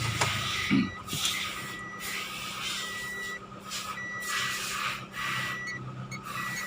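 Electronic warning beeper repeating a steady high beep, about half a second long, roughly once a second, over rustling handling noise.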